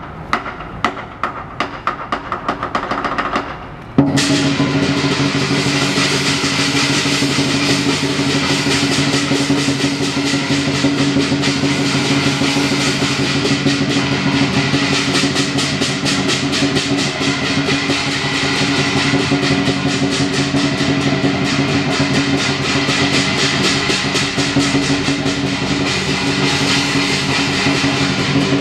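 Lion dance percussion: a Chinese drum beats with clashing cymbals and a gong. Scattered drum strikes build for a few seconds, then about four seconds in the full ensemble breaks into a loud, fast, unbroken beat with a steady metallic ring.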